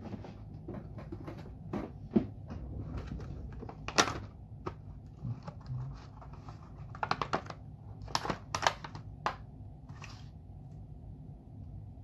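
Small hand tools being rummaged through and handled on a workbench while a set of picks is found: irregular clicks and light knocks, the sharpest about four seconds in and a quick run of clicks between about seven and nine seconds.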